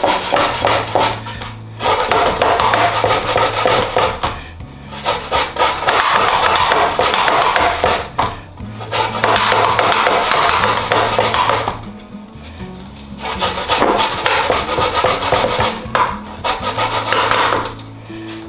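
Cassava root being grated on a stainless steel grater over a metal bowl: rapid rasping strokes in runs of a few seconds, with brief pauses between runs. Background music with a steady bass line plays underneath.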